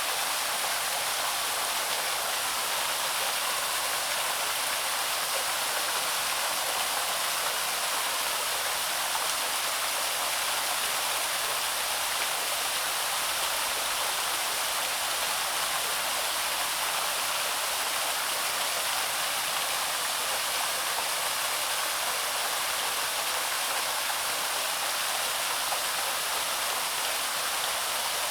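Small waterfall on a woodland stream splashing and rushing steadily, a constant hiss of falling water without breaks.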